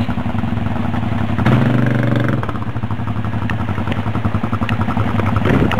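ATV (quad bike) engines running, with a louder burst of revving about a second and a half in.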